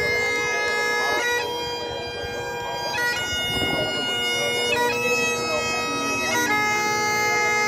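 Great Highland bagpipe playing a slow piobaireachd: long held melody notes over the steady drones. The melody changes note about every one and a half to two seconds, each change broken by quick grace-note flourishes.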